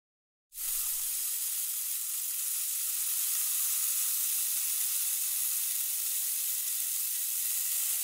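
A steady, even hiss that starts abruptly about half a second in.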